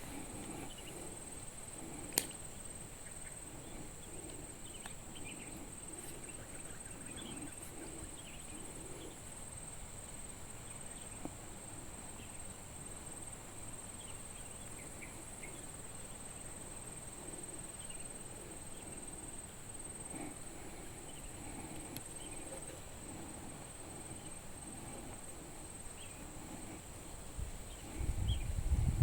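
Steady high-pitched insect drone, with faint short chirps scattered through it. A single sharp click about two seconds in, and a low rumble near the end.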